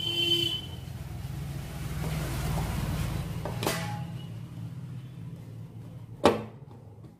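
Hand tools working on a gas stove's valve nut: a short squeak at the start, a light click midway, and a sharp knock about six seconds in, over a steady low hum.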